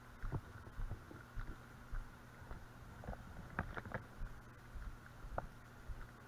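Footsteps of a person walking on a dirt-and-gravel track, heard as dull irregular thumps through a body-worn camera, with a few sharp clicks about three and a half seconds in.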